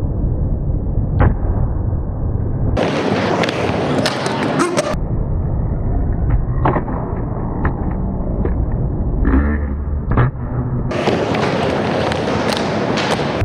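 Skateboard wheels rolling and rumbling on a concrete bowl, with scattered sharp clacks of the board. Twice the rumble gives way to a harsh scraping that lasts about two seconds, a few seconds in and again near the end.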